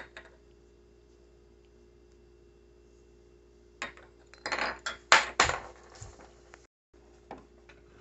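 Hard plastic clattering and knocking from handling coffee pods at a single-serve pod coffee maker: a click at the start, then a busy cluster of knocks and rattles about four seconds in, over a faint steady hum.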